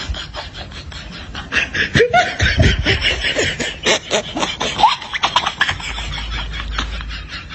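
Human laughter in quick rhythmic pulses. It swells into a louder, pitch-gliding burst about one and a half seconds in and eases back after about five seconds.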